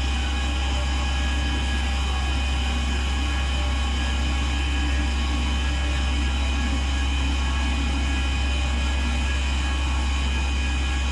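CNC automatic lathes running: a steady mechanical hum with a strong low drone and several steady higher tones.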